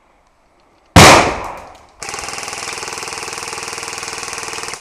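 A single loud bang about a second in, dying away over about a second. About a second later an airsoft gun fires a long full-auto burst, a steady rapid rattle that cuts off suddenly.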